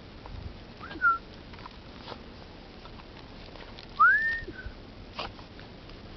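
A person whistling twice to call a dog: a short whistle about a second in, then a louder whistle that rises and holds about four seconds in.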